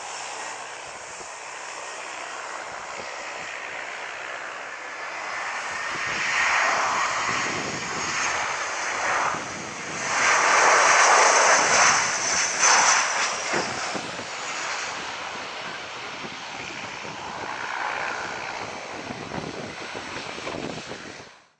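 Czech Airlines Airbus A319's twin jet engines on landing approach: a steady engine noise with a thin falling whine. It swells to its loudest as the airliner passes close about ten seconds in, then eases to a lower rumble as it touches down and rolls along the runway.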